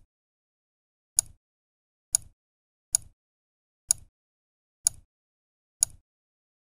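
Computer mouse clicks: six short, sharp clicks about a second apart, each one marking the ball's position in the next video frame in the tracking program.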